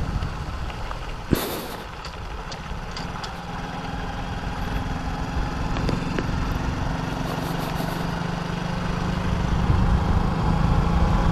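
Honda Wave motorcycle's small single-cylinder engine running under way, with wind and road noise. A single sharp knock comes about a second and a half in, and the engine hum grows steadier and louder toward the end.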